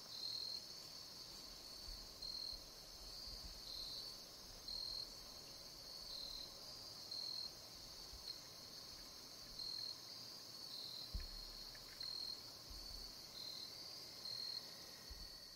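Insects calling: faint, rhythmic high chirps about once a second, alternating slightly in pitch, over a steady higher insect trill.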